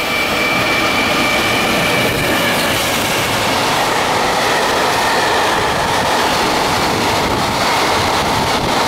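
EF210 electric locomotive and its container freight train passing through at speed. A steady high whine fades out about three seconds in, and then the loud, steady rush and rumble of the container wagons' wheels goes on.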